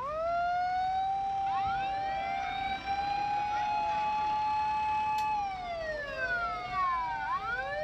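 Several emergency-vehicle sirens wailing at once, overlapping at different pitches. The loudest rises, holds steady for several seconds, dips after about five seconds, then rises again.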